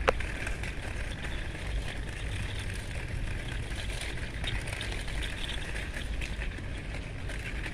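Steady outdoor background noise with an uneven low rumble and a faint hiss, broken by a single sharp click right at the start.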